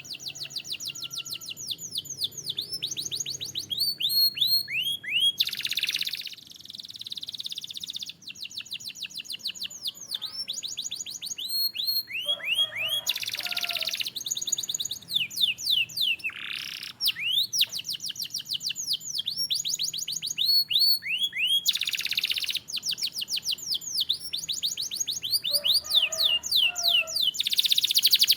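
Domestic canary singing a long, continuous song: fast trills of quick downward-sweeping whistled notes, run together in long series, with several dense, rolling, buzzier passages in between.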